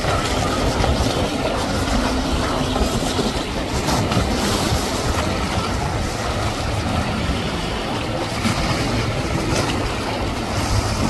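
Yamaha outboard motor on a center-console boat running at speed through choppy water: a steady engine rumble mixed with the rush of spray and waves off the hull.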